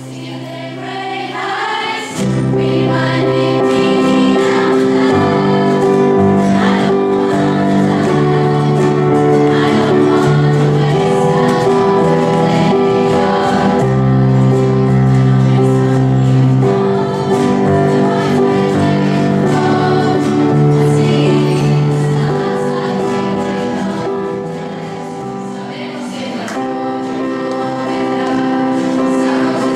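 A student ensemble of acoustic guitars and an electronic keyboard playing a song, with voices singing along. The music swells about two seconds in and eases briefly near the end before picking up again.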